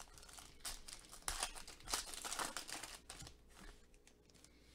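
The shiny foil wrapper of a Leaf Draft football card pack being crinkled and torn open by hand. It gives a run of crackly rustles from about half a second in to about three seconds in, loudest in the middle.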